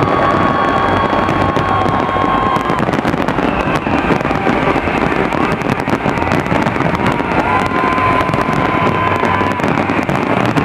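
Large aerial fireworks display going off in a dense, continuous barrage of overlapping bangs and crackling.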